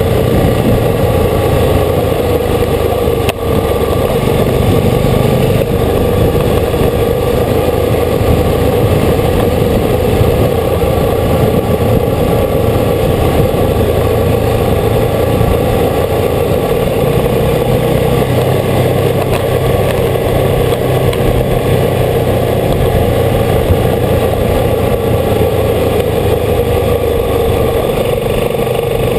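Old motorcycle's engine running steadily while the bike rides along at a constant pace, with a brief dip in loudness about three seconds in.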